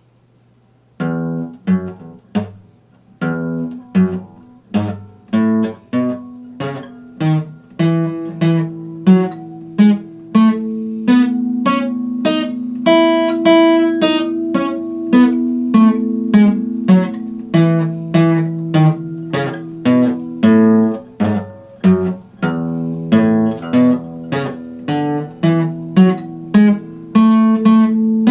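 Epiphone acoustic guitar playing chords in a steady rhythm, each chord ringing on, starting about a second in after a faint low hum.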